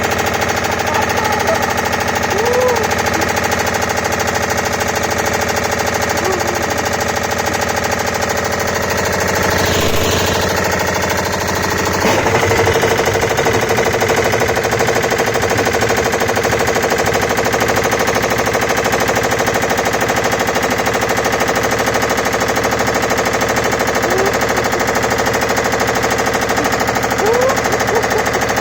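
Old washing machine spinning with rocks and a brick loose in its drum: a loud, steady, rapid banging and rattling, with short squeaks here and there. The spin changes pitch and grows a little louder about twelve seconds in.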